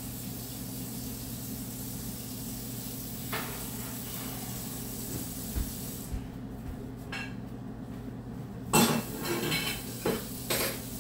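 A steady low hum, with a light knock about three seconds in. Near the end comes a loud sharp knock of hard objects, followed by a few more knocks and a short rattling clatter.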